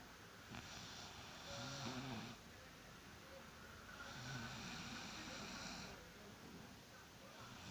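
A woman snoring: two long, rasping snoring breaths with a low rumble, about three and a half seconds apart, and a third beginning near the end.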